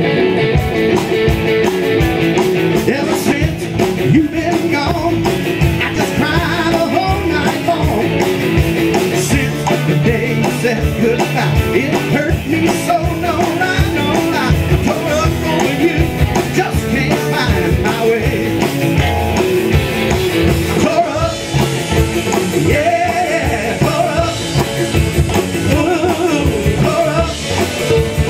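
Live rockabilly band playing: electric guitars, upright bass and drums, with a man singing lead.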